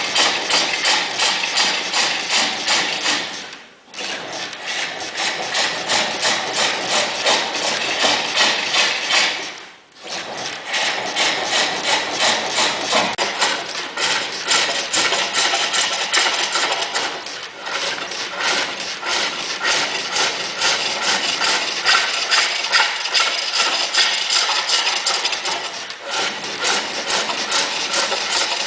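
Lathe turning: a cutting tool scraping the spinning workpiece with fast, even ticks, breaking off briefly twice, about four and ten seconds in.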